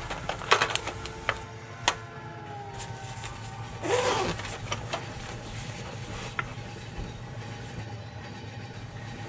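A fabric pencil case being handled: a few sharp clicks of pens and pencils in the first two seconds and a rustle of the case about four seconds in, over a steady low rumble of train-carriage sound.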